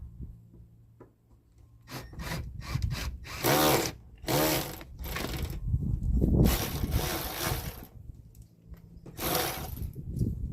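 Electric drill drilling out a steel rivet in several bursts, the motor speeding up and slowing as the bit bites into the rivet.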